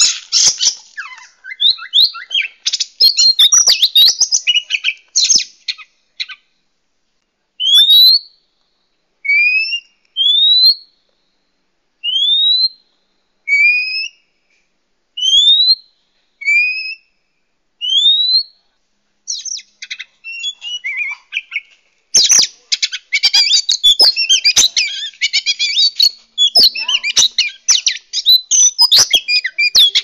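Oriental magpie-robin (kacer) singing. It opens with a fast, scratchy jumble of notes, then gives a run of clear rising whistles about one a second, alternating high and low. From about twenty seconds in, the rapid jumbled song returns.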